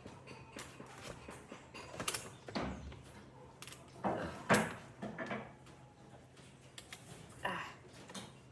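Scattered light knocks, clicks and short scrapes of hard objects being handled, with a few louder ones around the middle, over a faint steady hum.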